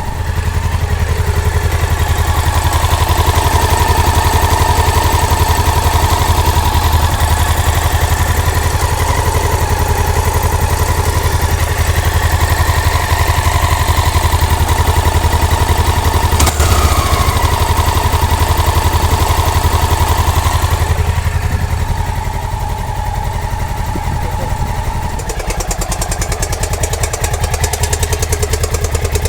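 1999 Honda Dominator NX650's single-cylinder engine running steadily with a loud, rapid clacking, the unexplained engine fault the owner is asking about. About two-thirds of the way through there is one sharp click with a brief falling whine.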